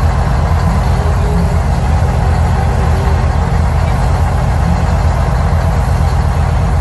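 Diesel truck engine idling, played loud through a concert sound system: a steady low rumble.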